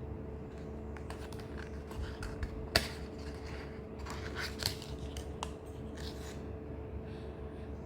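Scattered small clicks and rustles over a steady background hum, with one sharp click about three seconds in.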